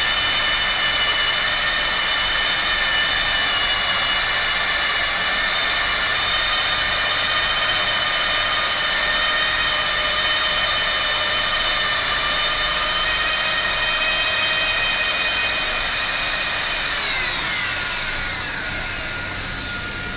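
Hand-held hot-air plastic welding gun's blower motor running with a steady high whine. About seventeen seconds in, the whine falls in pitch as the motor slows, leaving a quieter hiss of blowing air.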